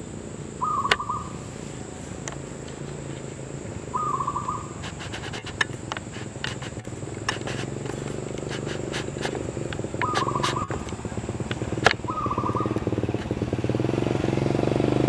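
Zebra dove cooing: four short, fast trilled coos, about a second, four, ten and twelve seconds in. Sharp clicks come between the coos, and a low motor rumble grows louder near the end.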